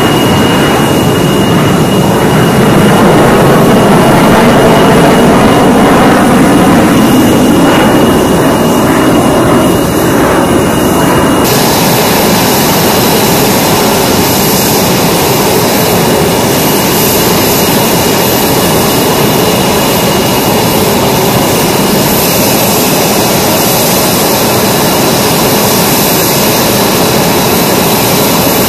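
Fighter jet engine noise. Loud jet noise from jets passing overhead, with some sweeping pitch, changes abruptly about eleven seconds in to a steady jet engine noise with a thin high whine.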